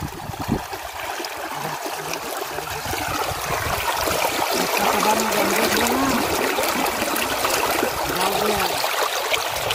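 Shallow muddy water churning and splashing steadily as a fishing net holding small fish and shrimp is worked through it. The sound grows a little louder a few seconds in.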